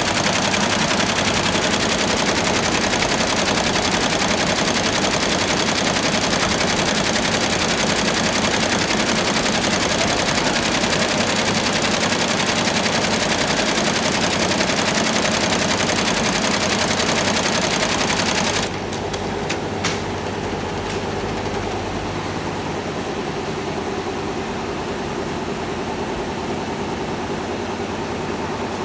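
Computerized embroidery machine stitching, a fast, dense needle clatter. About two-thirds of the way through the clatter cuts off abruptly with a couple of clicks, leaving a lower, steady machine hum.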